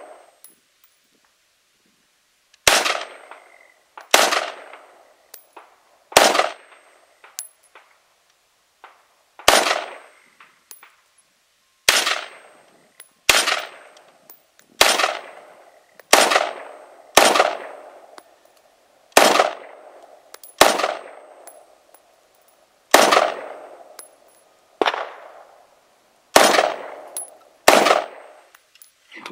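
Ruger Mini-14 semi-automatic rifle fired shot by shot, about fifteen rounds at an unhurried pace of one every one to three seconds, each crack trailing off in a short echo.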